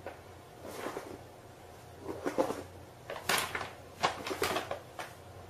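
Irregular clatter: several short clusters of knocks and rattles, the loudest in the second half.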